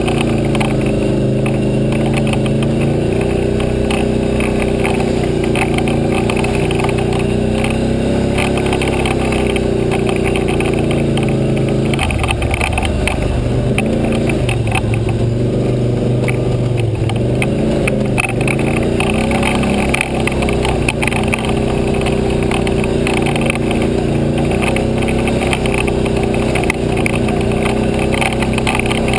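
ATV engine running as the quad climbs and bumps along a dirt trail, its pitch rising and falling with the throttle and easing off for a few seconds around the middle. Frequent short clatter runs through it.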